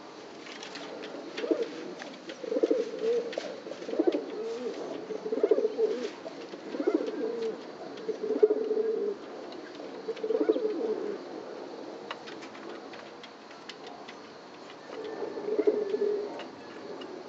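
A bird's low cooing call, repeated seven times over about ten seconds and once more near the end. Light clicks of a bill pecking grain in a metal bowl run between the calls.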